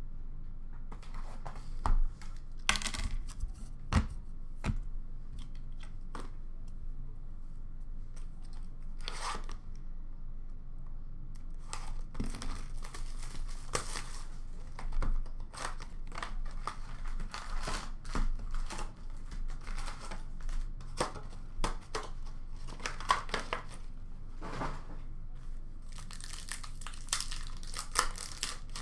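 Plastic shrink-wrap and foil trading-card pack wrappers being torn open and crinkled, with a run of sharp rustling and crackling that grows denser in the second half. A couple of sharper taps come a few seconds in, as cards and boxes are set down on a glass counter.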